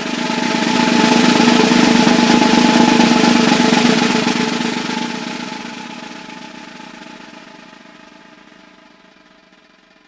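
Snare drum roll, a continuous rapid buzz of strokes that swells to its loudest a second or two in, then slowly fades away to almost nothing by the end.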